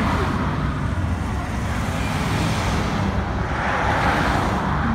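Highway traffic passing close by: steady tyre and engine noise with a low rumble, swelling as a vehicle goes past about four seconds in.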